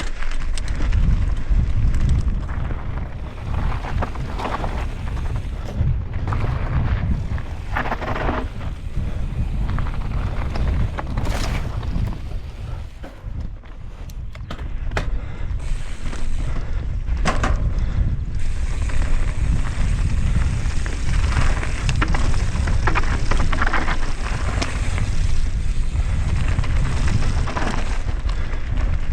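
A mountain bike ridden fast on a trail: wind buffeting the microphone and tyre noise, with scattered rattles and knocks from the bike over rough ground. The noise eases briefly about halfway through, then builds again.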